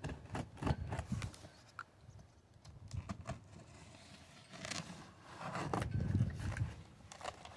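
Box cutter slicing through a corrugated cardboard box, with irregular clicks and short scrapes of the blade and the cardboard flaps being handled.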